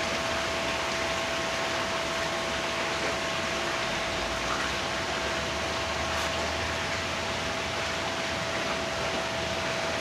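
Steady, even hiss with a thin, constant high tone running through it.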